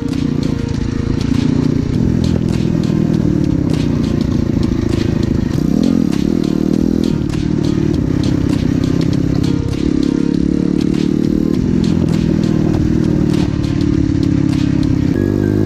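Engine of a vehicle being run in after a repair, running steadily under way, its revs shifting up and down every few seconds.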